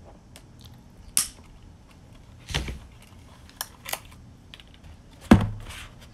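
Zip ties being snipped off a plastic tool case with diagonal cutters, and the case being handled: a sharp snap about a second in, a few lighter clicks, and a heavier knock about five seconds in as the hard plastic case is laid down.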